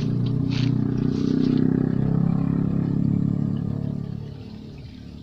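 A motor vehicle's engine running steadily, fading away after about four seconds, with a few short clatters in the first second or so.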